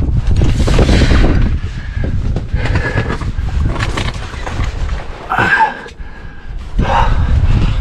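Wind buffeting the camera's microphone, mixed with rubbing and scraping as clothing brushes over the camera during a chimney climb. A short high-pitched sound comes a little past halfway.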